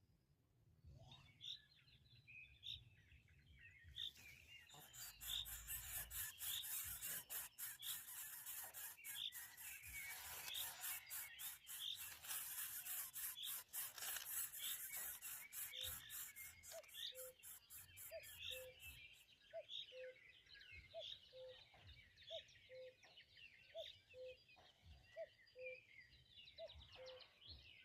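Birds calling: a high chirp repeated about once a second, joined from about four seconds in until past halfway by a dense, fast ticking buzz, and in the second half by short low hoots about once a second.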